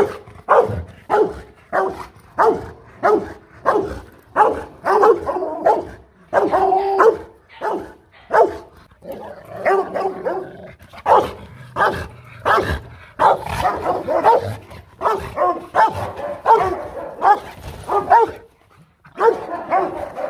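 Male Rottweilers barking repeatedly at each other, about one to two barks a second with a brief pause near the end: hostile barking between two rival males that dislike each other.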